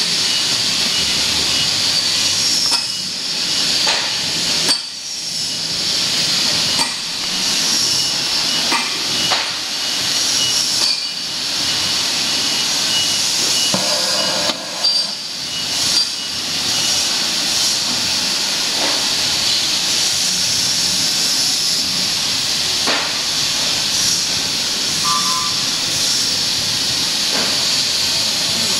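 A steady, loud hiss, like escaping air, at a chair back heat press in a workshop, broken by a few scattered knocks and clicks.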